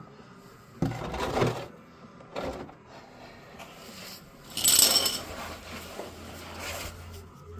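Handling noises of oil-change work: a few short clinks and knocks, the brightest a ringing metallic clink about five seconds in.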